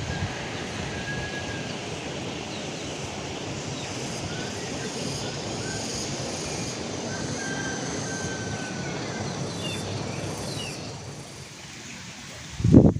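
Steady rushing of flowing river water, with faint, short bird chirps over it and a brief low bump near the end.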